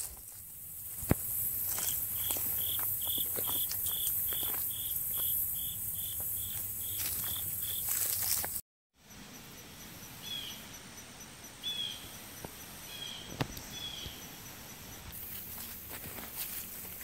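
Autumn woodland insect chorus, a steady high hiss. Over it a clear high note repeats about twice a second for several seconds. After a brief break, a few short chirping calls and a faint rapid ticking follow.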